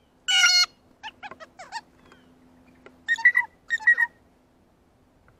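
A backyard songbird calling: one harsh, buzzy call, then a quick run of short falling notes, then two more calls about half a second apart near the end.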